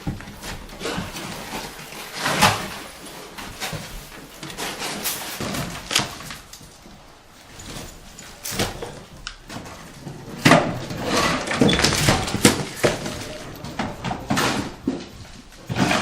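House demolition: irregular bangs, cracks and thuds as building materials are knocked loose and fall, a dozen or so sharp impacts, with a cluster of them in the second half.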